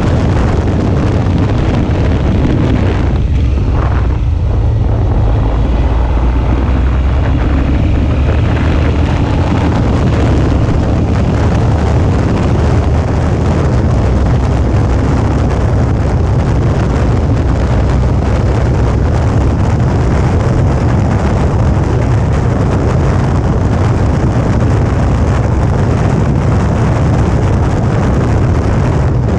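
Suzuki V-Strom 650's V-twin engine running steadily while riding, mixed with heavy wind rumble on the microphone.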